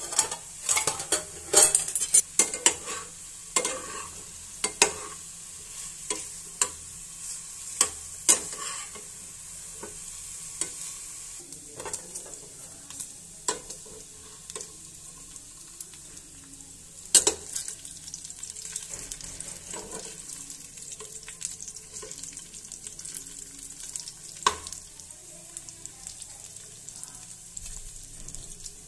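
Mutton pieces frying in hot fat in a pan, sizzling steadily. Sharp pops and clicks come thick in the first nine seconds or so and then only now and then, a few of them loud.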